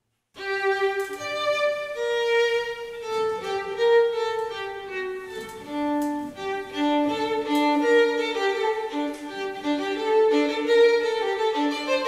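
Background music led by violin, playing a melody of held notes, starting about half a second in.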